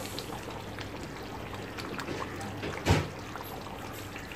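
Runny cashew-nut paste pouring in a thin stream into simmering chicken curry gravy, over the steady low bubbling of the curry. A single louder thud comes about three seconds in.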